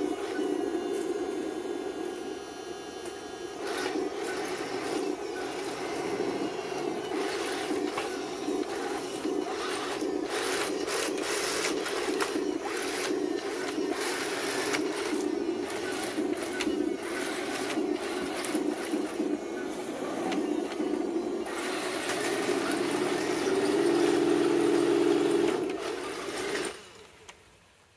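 Heng Long 1/16-scale RC M41 Walker Bulldog tank running over rough stones: its electric drive running steadily, with many clicks and knocks as the tracks clatter and scrape on the rocks. It grows louder near the end, then fades out.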